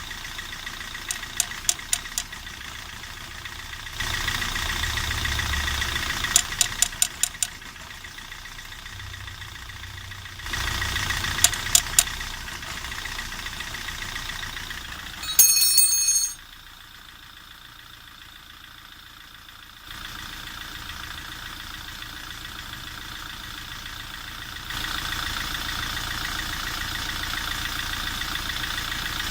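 Opel car engine running, with runs of sharp knocks: the knock the owner is tracing while checking the ABS sensor. The running noise steps louder and quieter every few seconds, and a brief high-pitched sound comes about halfway.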